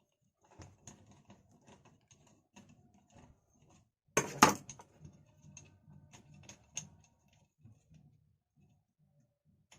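Small metallic clicks and taps of nuts being fitted and turned onto a mixer grinder motor's bolts, with one louder clatter of metal parts about four seconds in.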